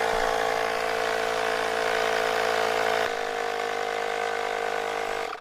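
Electric air pump running steadily as it inflates a flat bicycle tire, then cutting off suddenly near the end.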